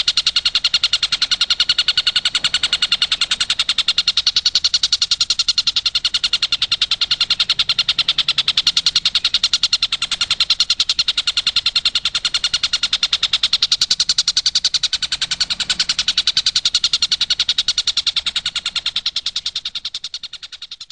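Tengkek buto kingfisher calling in a rapid, evenly repeated chattering trill, high and shrill, that fades out near the end.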